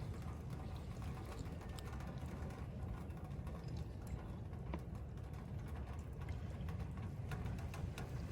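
Wood fire crackling in a wood-burning stove: irregular sharp snaps and pops over a steady low rumble.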